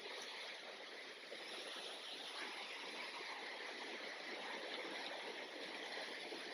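Steady rushing of flowing river water, growing slightly louder about a second and a half in.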